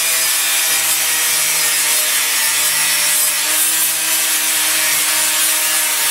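Angle grinder running steadily against car body steel, a continuous rasping hiss over the motor's steady whine.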